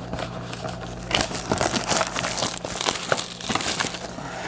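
Plastic wrapping of a trading card box being crinkled and crumpled by hand, a dense crackling with sharp clicks that starts about a second in.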